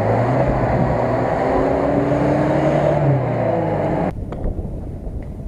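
4x4 off-roader's engine revving under load as it ploughs through deep mud, its pitch climbing over about three seconds; the sound cuts off abruptly about four seconds in, leaving quieter outdoor noise.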